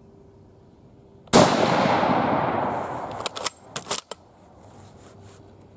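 One shot from a German Kar98k bolt-action rifle in 8mm Mauser, about a second in, its report echoing away for over a second. Then a quick run of metallic clacks as the bolt is worked to eject the spent case and chamber the next round.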